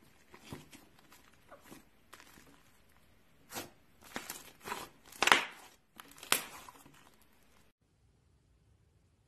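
Slime being squished and pulled by hand, giving irregular squelches and pops, loudest a little after five seconds. The sound cuts off suddenly near the end.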